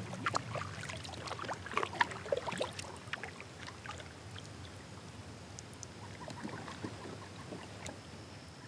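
Kayak paddling: water splashing and dripping off the paddle blades, with small knocks, loudest in the first few seconds and then thinning out as the kayak glides.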